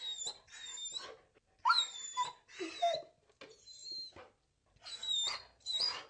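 A dog whining: about seven short, high-pitched whimpers in a row, a few of them dipping lower in pitch about halfway through.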